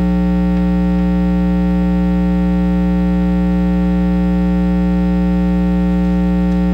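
Loud, steady electrical mains hum: a buzz with many overtones in the sound system's audio feed, holding level without change.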